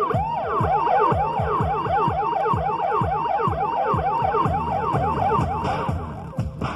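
Yamaha MOXF8 synthesizer keyboard playing a siren-like patch. Rapid repeated notes, about four a second, each sweeps up and falls back in pitch, overlapping into a wailing, siren-like warble, with lower sweeps dropping beneath. It eases off near the end.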